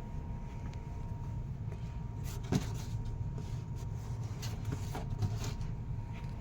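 A few light knocks and rustles, the clearest about two and a half seconds in and again near five seconds, over a steady low background rumble.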